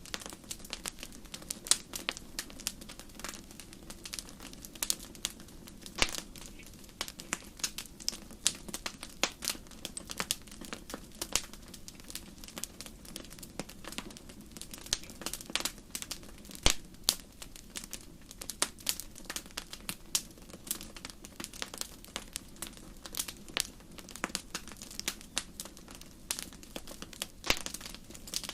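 Campfire burning with many sharp, irregular crackles and pops of burning wood over a soft steady hiss.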